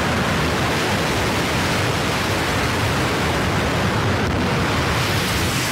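Loud, steady rushing noise on a handheld news camera's microphone, with no distinct impacts or voices.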